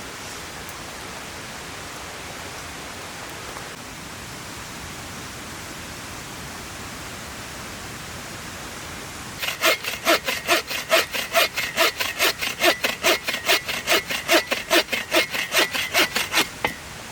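Steady rush of a river, then from about halfway a hand saw cutting through wood in quick, even back-and-forth strokes, about four a second, stopping shortly before the end.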